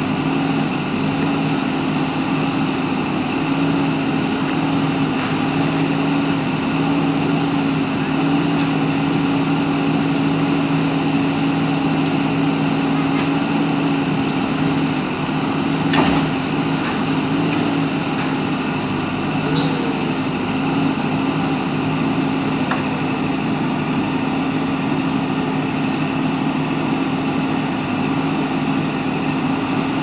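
Diesel engine of a JCB backhoe loader running steadily at one pitch while the backhoe works rubble, with a single sharp knock about halfway through.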